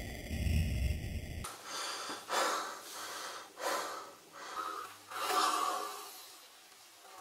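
A man breathing hard in a series of sharp gasps, about five heavy breaths over four seconds. Before them, a low steady drone cuts off suddenly about one and a half seconds in.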